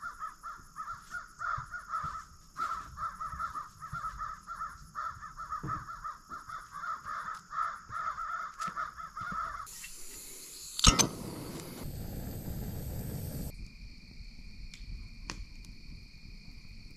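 Birds calling for about the first ten seconds, a fast run of short repeated calls at two or three a second. Then the background changes abruptly, and a single loud sharp crack comes about 11 seconds in.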